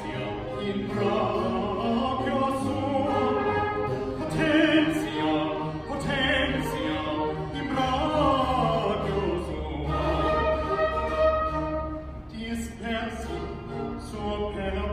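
A male solo singer singing a baroque aria with vibrato, accompanied by a small baroque string ensemble with cellos and double bass.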